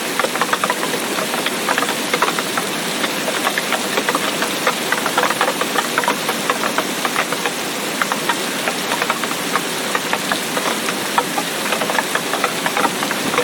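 Heavy rain falling steadily: a dense, irregular patter of drops striking a surface over a continuous hiss.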